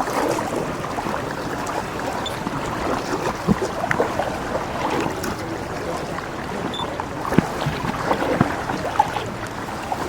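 Water splashing and lapping around a sea canoe as it is paddled, with a few sharp knocks, mostly in the second half.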